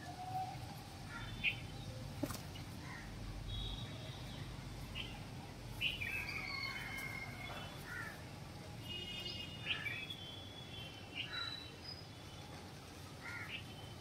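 Several small birds chirping and calling: scattered short chirps, a few quick trills and a falling whistle, over low steady background noise.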